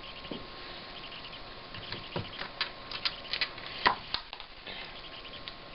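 Scattered light clicks and taps of small objects handled on a workbench, the loudest about four seconds in, over a faint steady hiss: the handling of a desoldered electrolytic capacitor and tester probes while its capacitance is measured.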